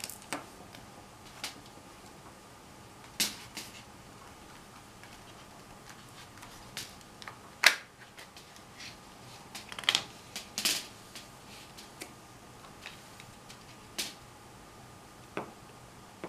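Irregular sharp plastic clicks and snaps as the plastic handle shell of a rechargeable electric mosquito racket is handled and prised apart, with the loudest snap a little before halfway and a quick cluster of clicks a couple of seconds later.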